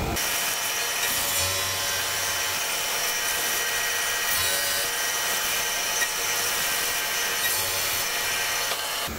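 CNC vertical machining centre side-milling a metal plate with a 12 mm end mill on a heavy pass, 27 mm deep and 5 mm wide: a steady cutting noise with high whining tones and a rasping hiss.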